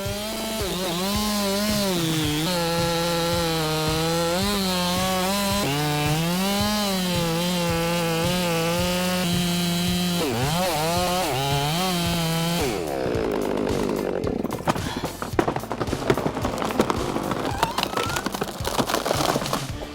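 A chainsaw runs under load while cutting a large tree, its pitch dipping and recovering as the bar bites. About two-thirds of the way through it cuts off, and a run of irregular cracking and crashing follows as the tree comes down.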